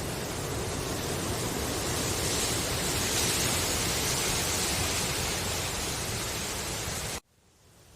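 Wind rustling through bamboo leaves: a steady, even hiss that swells a few seconds in, then cuts off abruptly near the end and comes back much fainter.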